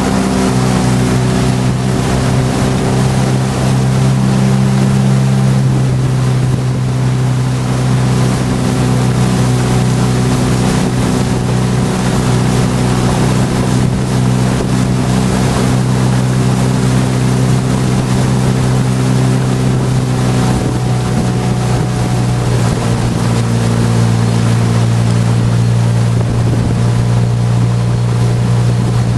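A motor launch's engine runs at a steady cruising speed, a constant low hum with a hiss of wind and water over it. Its note shifts slightly about three-quarters of the way through.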